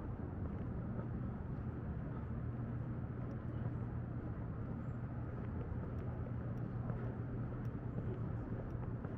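Steady outdoor background rumble with a low hum, the kind of sound that distant traffic or machinery makes, and a few faint ticks scattered through it.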